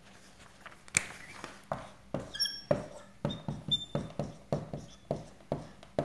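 Dry-erase marker writing on a whiteboard: a quick run of short taps and scratches from the pen strokes, about two or three a second, with a couple of brief high squeaks.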